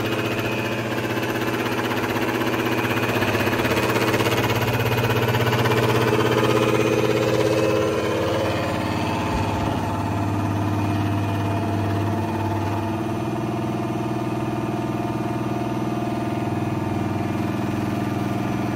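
Electric kitchen blender's motor running steadily at speed, blending a pudding mixture; its tone shifts slightly about eight seconds in.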